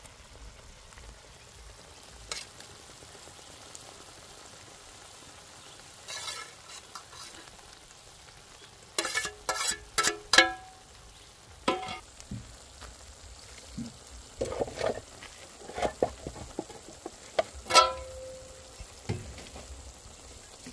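Onion-tomato masala sizzling on a large iron tawa as okra is added and stirred in, with a metal spatula clanking and scraping against a steel plate and the griddle. The loudest clanks, each with a short ring, come in a quick run about halfway through, and one more near the end.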